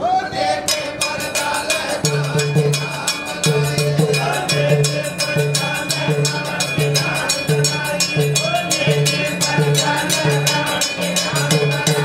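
Rajasthani bhajan accompaniment: small brass hand cymbals (manjira) clashing in rapid, dense strokes. A tabla joins about two seconds in, beating a steady repeating rhythm.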